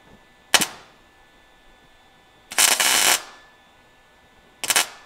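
MIG welder laying three tack welds, each a crackling burst: a short one about half a second in, a longer one of about half a second in the middle, and another short one near the end.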